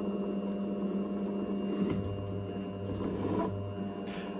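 Optimum OptiDrill DX 15V bench drill press running with a steady hum, its spindle turning a countersink in pre-drilled holes in a cast aluminium plate. A lower hum comes in about halfway through.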